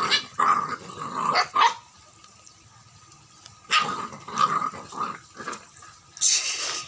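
Terrier-cross dog barking and growling in short bursts: a cluster of calls, a pause of about two seconds, then a second cluster. A short rush of noise follows near the end.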